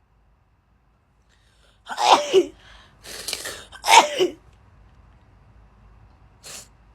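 A girl sneezing twice, about two seconds apart, as part of a sneezing fit: each sneeze is a loud voiced 'achoo' whose pitch falls, with a sharp breath between them. A short faint breath sound follows near the end.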